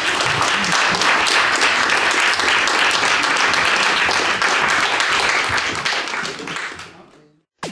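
Audience applauding, dense clapping that holds steady and then dies away near the end.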